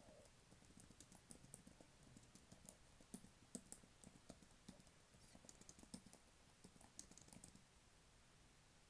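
Typing on a computer keyboard: soft, quick, irregular key clicks that stop about a second before the end.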